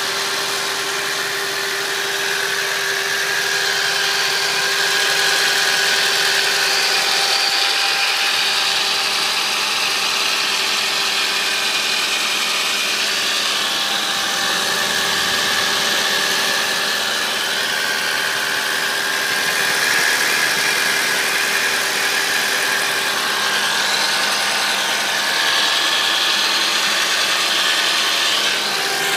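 Audi A4 B7 1.8T turbocharged four-cylinder engine idling on a cold start. Over the idle run a steady whining tone and higher tones that waver in pitch: the strange noise this engine makes when started cold.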